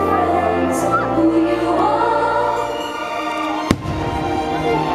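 Fireworks show soundtrack over loudspeakers: orchestral music with a choir singing a slow melody. A single sharp firework bang cuts through the music about three and a half seconds in.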